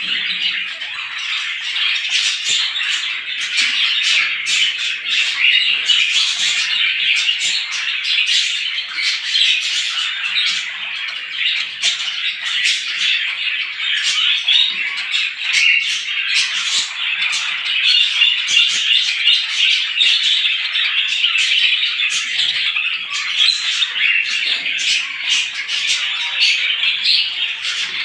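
A flock of small birds chirping all at once, many overlapping calls forming a dense, unbroken chatter.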